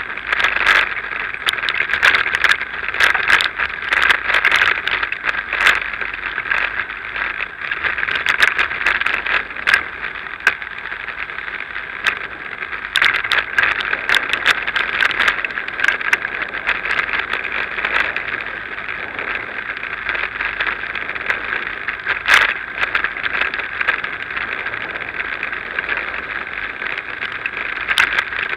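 Bicycle riding over block paving: a steady tyre hiss with frequent sharp rattles and knocks as the bike and camera jolt over the paving.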